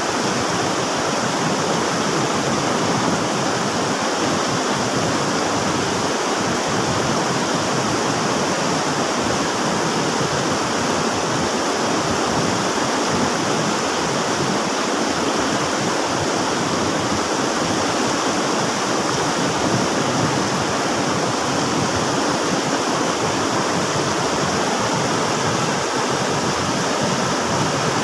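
River water rushing steadily, a continuous even noise with no breaks.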